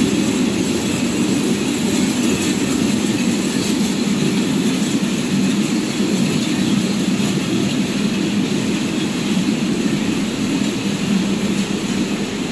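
Steady mechanical noise of a poultry slaughter line running: the plucking machine and the overhead shackle conveyor. It is a continuous low-pitched din with an even hiss on top and no pauses.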